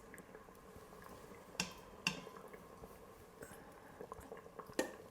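Three light clinks of a utensil against the Instant Pot's stainless steel inner pot, spaced a second or more apart, over a faint steady hum.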